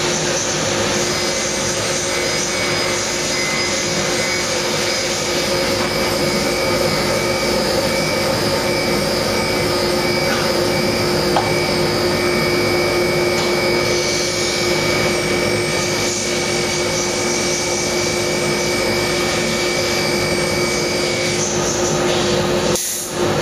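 Steady fan-like whirring of a running machine, with a constant hum and a faint high whine that stops near the end.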